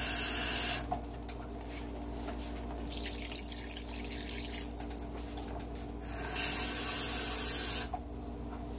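Water being added to a pot of gumbo roux and chopped vegetables: two louder gushes of running water, one near the start lasting about a second and one about six seconds in lasting about a second and a half, with quieter pouring and splashing between.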